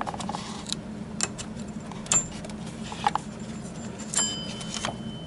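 Scattered metallic clicks and knocks of wrenches and engine parts as the slack serpentine belt is worked off the alternator pulley, with one ringing metal clink about four seconds in.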